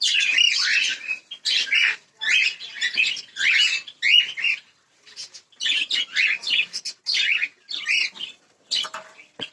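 A group of caged pet birds chirping and calling: clusters of sharp, high chirps follow one another almost without a break, with two short pauses.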